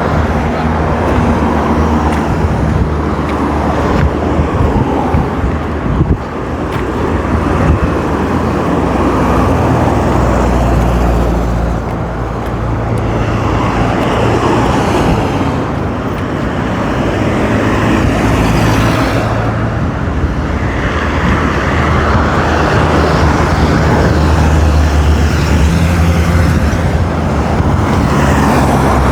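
Steady road traffic heard from the roadside: a continuous rumble of car and truck engines and tyres, with vehicles passing and swelling louder at times, one around two-thirds of the way through.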